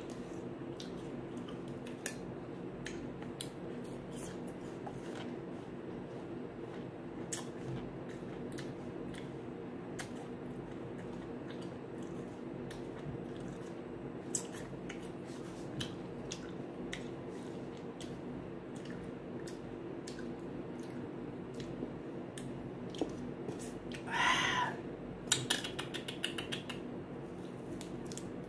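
Scattered sharp crunches and clicks from eating raw green apple slices dipped in shrimp paste, over a steady low hum. About 24 seconds in there is a brief high-pitched sound, followed by a quick cluster of clicks.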